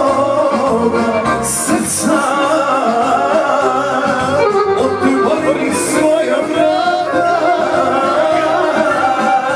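Band music with singing over a steady, pulsing bass beat. Two short bursts of hiss come about a second and a half in and again about six seconds in.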